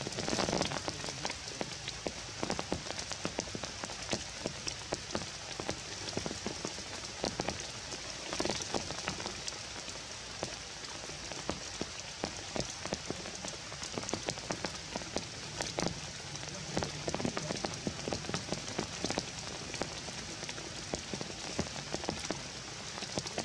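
Rain falling on forest foliage: a steady hiss with many small drops hitting leaves and branches.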